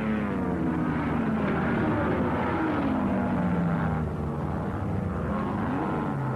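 Racing car engines passing at speed, one after another; the engine note drops in pitch as a car goes by, and another rises and falls near the end.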